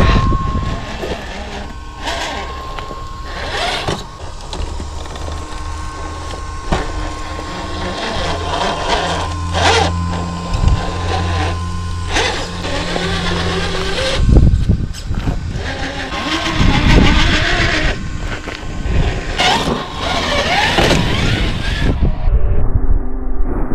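Traxxas TRX-4 RC crawler driving: its drivetrain runs with a faint steady whine, and there are repeated knocks and bumps as it crawls over rough ground. The high end drops away suddenly near the end.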